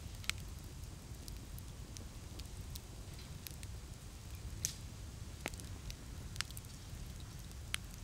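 Wood campfire in a fire stand crackling, with scattered sharp pops, a few of them louder, over a steady low rumble.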